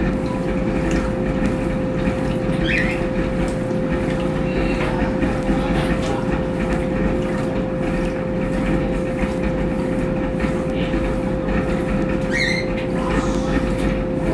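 Brastemp Tira Manchas Pro 12 kg washing machine running, a steady high motor whine over a constant low rumble.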